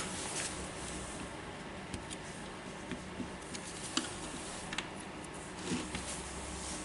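Faint, scattered small clicks and taps of wires and plastic parts being handled and tucked into a cordless drill's housing, over a low steady hum.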